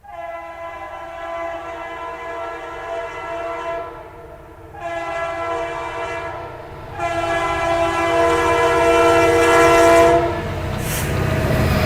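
Freight train air horn sounding three chord-like blasts: the first about four seconds long, the second shorter, the third the longest. Near the end a rumbling train-passing noise swells up.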